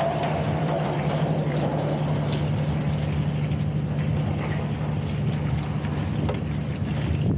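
Steady drone of the engine running an opal-dirt agitator, a converted cement mixer used to wash opal dirt, with a few light clicks over it.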